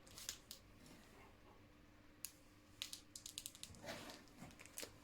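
Faint, scattered clicks and a short rustle of plastic snack packets being handled and picked through in a box, including a quick run of small clicks about three seconds in.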